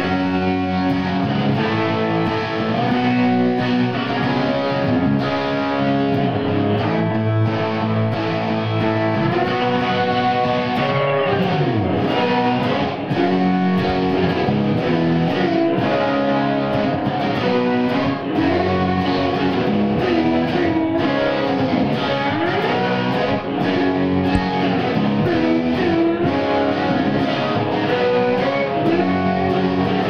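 Electric guitar music playing without pause, with lead notes that slide and bend up and down in pitch.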